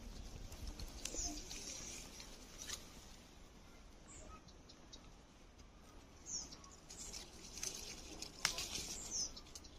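Pear-tree leaves and branches being handled as a hand lifts green pears on their stalks, with a few sharp clicks, the loudest near the end. Small birds chirp briefly a few times in the background.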